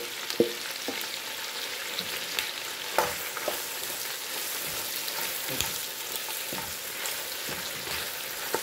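Sliced onions and chopped garlic sizzling in hot oil in a stainless steel pot, with a steady hiss. A wooden spoon stirs them, scraping and knocking against the pot a few times.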